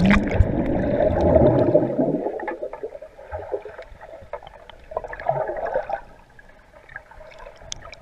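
Swimming-pool water splashing and gurgling, loud and muffled for about the first two seconds, then settling into quieter sloshing.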